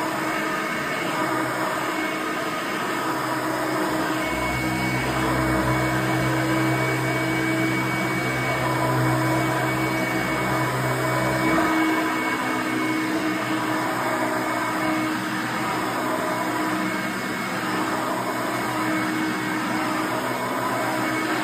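1989 Hoover Elite 350 upright vacuum cleaner running steadily on carpet, a dense motor whine with a few steady tones. A deeper low hum joins in about four seconds in and cuts off just before the twelve-second mark.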